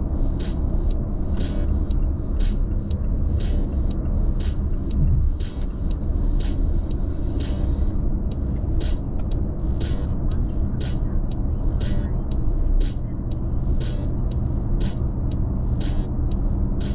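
Steady road and tyre rumble inside a car cabin at freeway speed, with a background music track's crisp beat ticking about twice a second over it.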